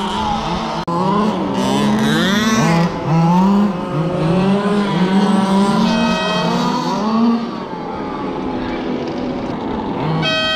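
Several radio-controlled race cars' motors revving up and down as they lap a track, their pitches gliding and overlapping. A short, steady horn-like tone sounds about six seconds in and again near the end.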